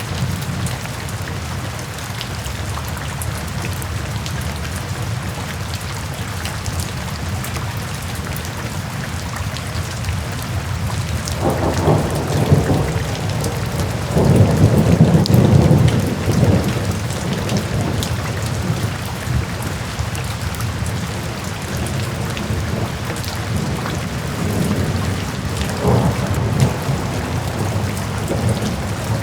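Steady rain falling, with low rumbles of thunder rolling in twice around the middle and once more, fainter, near the end.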